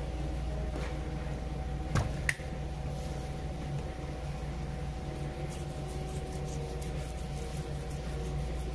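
Steady low machine hum, with two sharp knocks about a third of a second apart about two seconds in as the large fish is turned around on the cutting board.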